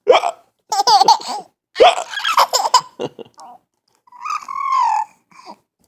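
Baby laughing in three quick bursts, then a longer sound of the voice that rises and falls about four seconds in.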